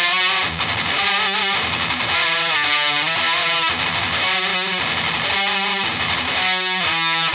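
Epiphone Dot electric guitar with a Seymour Duncan JB humbucker, played through a ProCo Rat distortion pedal into a Fender Deluxe Reverb amp: a distorted hard-rock/metal riff of held notes and chords in short phrases with brief breaks, some notes bent with vibrato.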